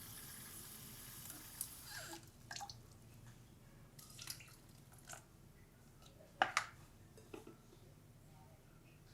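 Water running from a kitchen tap stops about two seconds in. Then come scattered light clicks and knocks of kitchenware being handled, the loudest a sharp double knock past the middle.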